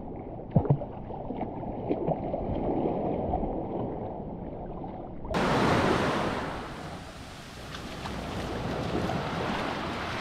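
Sea waves washing onto the shore, swelling twice, with wind on the microphone and a few light knocks about half a second in.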